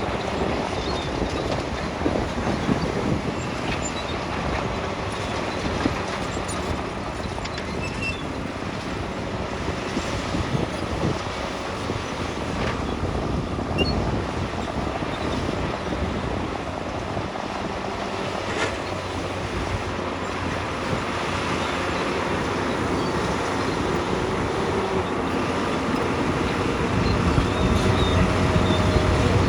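Heavy construction machine's diesel engine running steadily under work, a continuous mechanical rumble that grows somewhat louder near the end.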